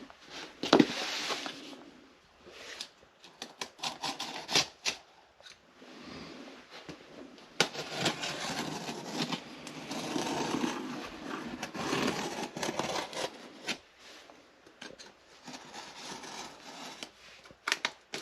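A cardboard shipping box being opened and its packing handled. There are sharp clicks and knocks, and long stretches of scraping and rustling in the middle.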